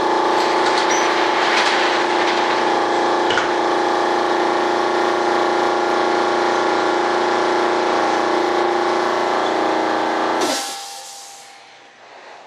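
A motor running steadily, a hum of several fixed tones that cuts off about ten and a half seconds in and dies away.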